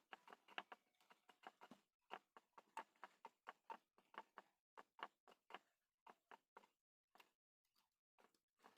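Faint handling sounds of sewing thread being wrapped by hand around a charger cable's end: a quick run of soft ticks and rustles, thinning out toward the end.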